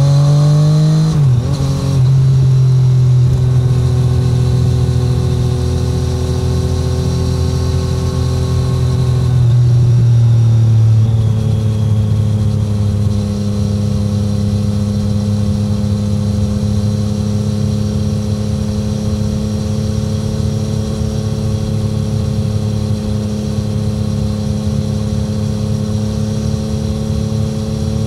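Triumph Street Triple 765R's three-cylinder engine through an SC Project SC1-R titanium exhaust, heard onboard without wind noise. The note drops in pitch about a second in and again around ten seconds in, then holds steady at cruising revs.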